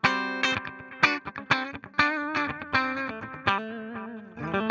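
Clean electric guitar played through a Donner Alpha Force pedal's delay into a Fender Twin Reverb amp: a run of picked notes, several a second, each ringing and fading, with the echo set low so it sits a little in the background.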